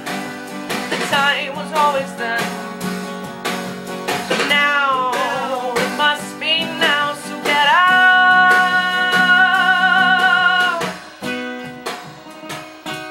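A live band playing with guitar, and a wordless vocal line that slides down in pitch several times, then holds one long wavering note for about three seconds before dropping away about eleven seconds in.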